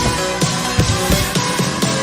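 Background electronic music with a steady, fast beat.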